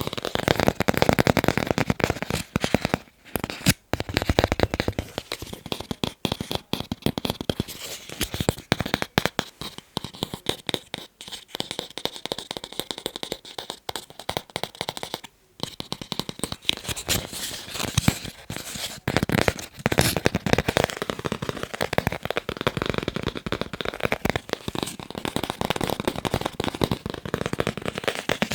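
Fast tapping on assorted hard objects: a dense stream of rapid clicks and taps, broken by brief pauses about three and four seconds in and again near the middle.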